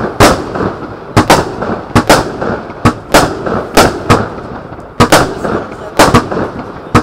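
A 1-inch blue peony fireworks cake firing shot after shot: over a dozen sharp bangs about every half second, with a noisy hiss between them.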